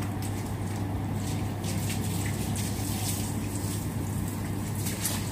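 Water running from a garden hose, with a steady low hum underneath.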